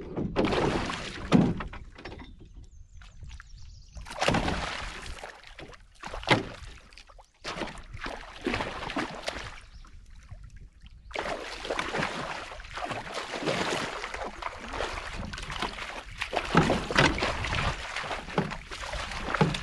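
Water sloshing and splashing around a canoe, with a few sharp knocks in the first half and busier, steadier splashing through the second half.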